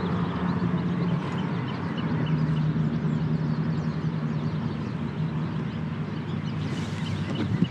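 A steady low engine hum, with faint bird chirps.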